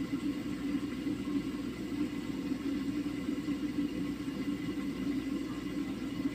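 A steady low whir with a faint high tone above it, unchanging throughout, with no bubbling, sizzling or clatter heard.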